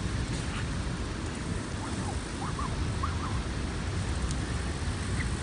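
Steady low outdoor rumble, with a few faint short chirps about two to three seconds in.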